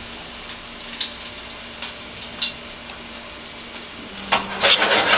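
Garlic frying in hot vegetable oil in a stainless steel pan: a steady sizzle with scattered small pops. The sizzle grows louder about four seconds in.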